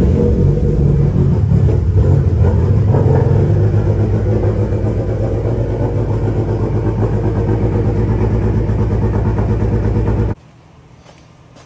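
Mitsubishi Lancer Evolution X's turbocharged four-cylinder engine running loud and steady just after start-up, cutting off suddenly about ten seconds in.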